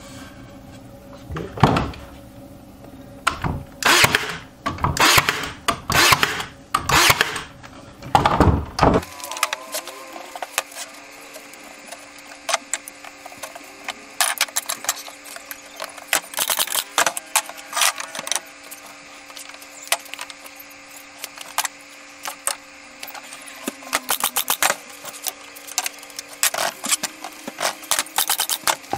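Cordless brad nailer firing 2-inch brad nails into cedar frame boards, a run of sharp shots through the first nine seconds. After that come lighter clicks and knocks of boards and tools being handled, over a faint steady hum.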